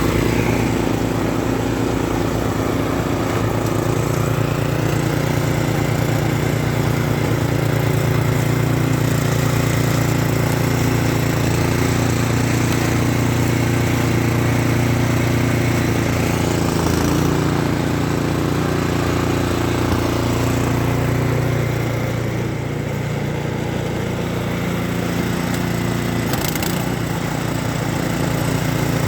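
Snow blower engine running steadily under load, with a slight drop in level about two-thirds through.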